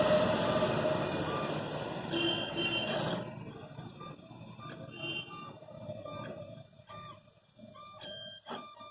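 Homemade 3D printer's stepper motors running: a dense, louder run of motion for about the first three seconds, then short whining moves at different pitches with brief pauses between them.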